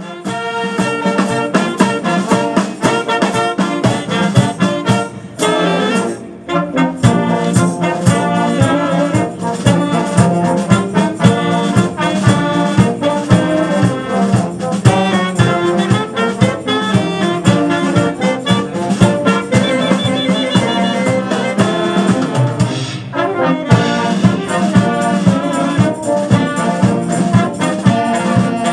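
A brass and wind band playing an upbeat piece, with trombones and saxophones over a steady beat. The music dips briefly about six seconds in.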